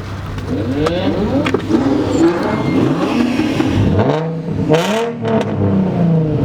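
Several car engines revving repeatedly, their pitch rising and falling in overlapping sweeps.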